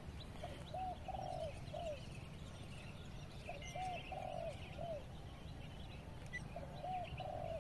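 A dove cooing: three repeats of the same short phrase of about four soft notes, roughly three seconds apart, with faint chirps of small birds higher up.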